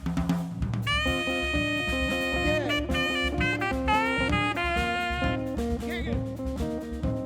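Live jazz band playing: a horn holds a long note about a second in, then moves on through a melodic line over bass and drum kit.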